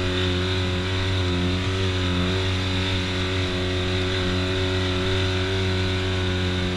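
Side-by-side UTV engine running under way at a steady moderate speed, its pitch rising and falling slightly with the throttle.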